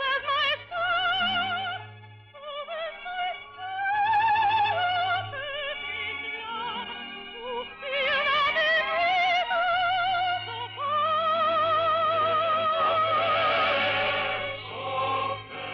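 Operatic soprano singing with a wide vibrato over a sustained accompaniment, from an old radio broadcast recording. About eleven seconds in she takes a long held high note that swells near the end, then falls away.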